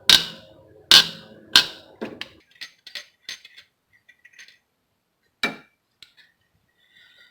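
Metal tools working an alternator mounting bolt loose: three loud sharp metallic knocks in the first two seconds, then a run of smaller clicks and one more knock about five seconds in.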